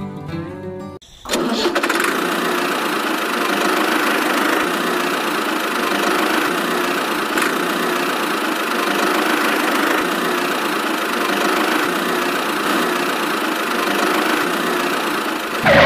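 Steady engine running sound that goes with the toy tractor towing its trolley. It starts abruptly about a second in and cuts off just before the end.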